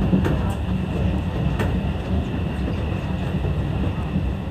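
Seibu 101-series electric train running along the track, heard from inside the driver's cab: a steady low rumble with a few sharp clicks from the wheels and rails, the first ones in the opening second or two.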